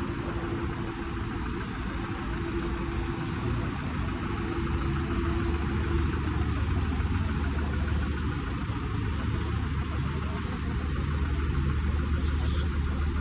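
Street traffic noise: a steady low engine hum and rumble over a hiss of road noise, growing louder about halfway through.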